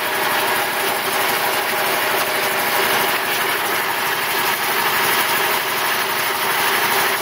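Quincy QR 325 belt-driven air compressor running steadily under full load, its old 1725 RPM GE electric motor drawing about 24 amps per leg, with a constant mechanical hum and clatter.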